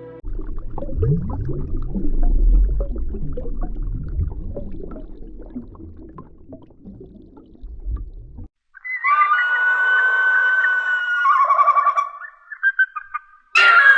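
Animal calls in two clips: first a long low rumbling growl with a rising moan about a second in, then, after a cut, high warbling calls held for a few seconds each.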